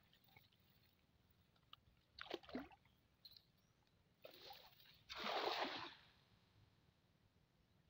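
A weighted cast net landing flat on the river, a splash of about a second as it hits the water about five seconds in. Shorter splashes of water come before it.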